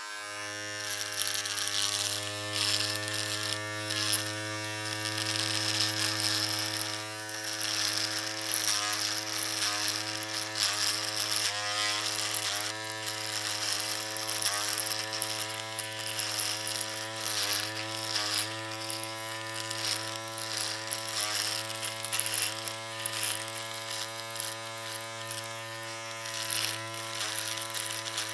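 Electric shaver running with a steady buzzing hum, its pitch dipping briefly every second or two.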